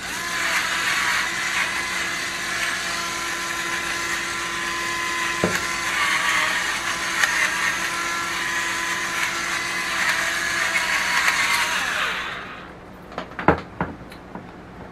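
Battery-powered electric pepper mill running, grinding peppercorns: a steady motor whine for about twelve seconds that then stops, followed by a couple of light knocks.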